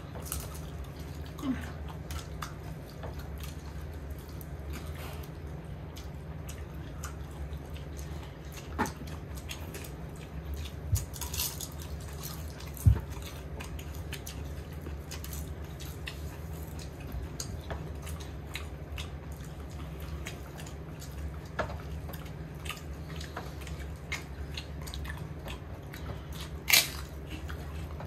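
People eating a meal: chewing and scattered clicks and taps of cutlery and dishes, with a couple of sharper knocks about halfway and near the end, over a steady low hum.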